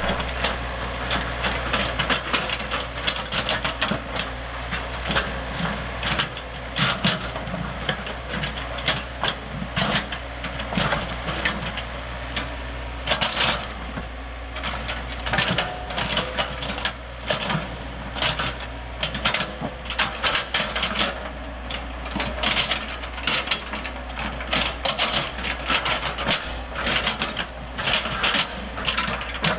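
Small crawler excavator's diesel engine running steadily while its bucket scrapes and shoves loose rock, with frequent irregular clanks and knocks of stone against steel.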